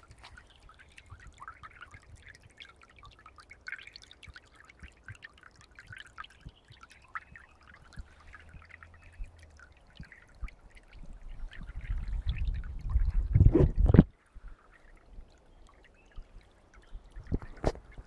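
Shallow forest stream trickling and gurgling over leaves and twigs, a constant patter of small water sounds. Past the middle a loud low rumble on the microphone builds for about three seconds and cuts off suddenly.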